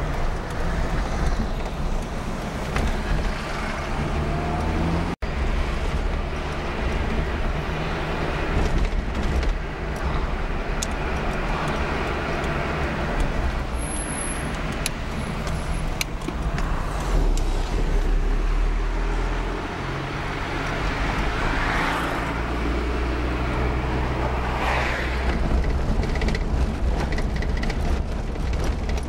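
Fiat Panda's small petrol engine running as the car drives through town, heard from inside the cabin, its pitch stepping up and down with speed and gear changes. There is a brief break in the sound about five seconds in.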